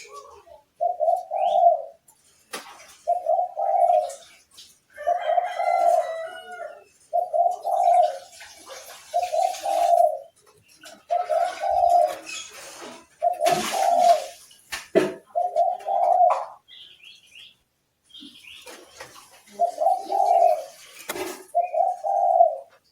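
A bird giving a repeated low, dove-like cooing note, about ten times at roughly two-second intervals with a short pause past the middle, and faint higher chirps in between.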